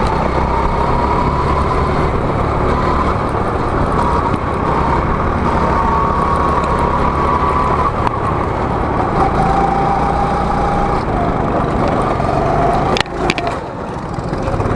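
Go-kart's small engine running hard under the driver, its whine rising and falling in pitch as the throttle is worked, over a heavy low rumble. Near the end the pitch and loudness drop briefly, as when lifting off into a turn.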